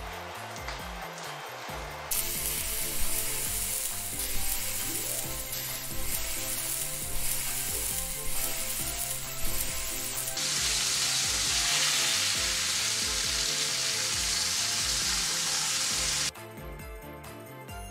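Lamb shoulder steaks sizzling and frying in a hot ridged grill pan on a gas burner. The sizzle starts about two seconds in, gets louder about ten seconds in, and cuts off suddenly near the end.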